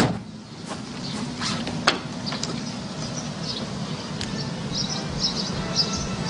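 Outdoor ambience: a steady low hum and hiss with a few sharp clicks in the first seconds, and short high chirps repeating through the second half.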